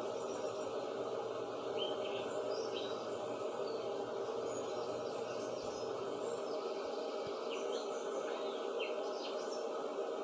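Birds chirping in short, scattered calls over a steady background hiss, with the chirps bunched in two spells.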